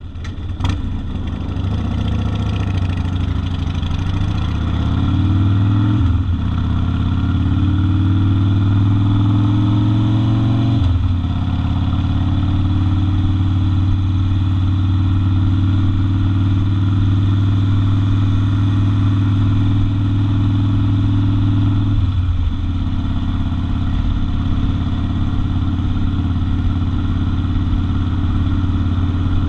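Harley-Davidson Sportster XL 1200 Custom's air-cooled V-twin engine pulling away, its pitch rising through the gears and dropping at upshifts about 6 and 11 seconds in. It then runs at a steady cruising pitch, with one more upshift about 22 seconds in.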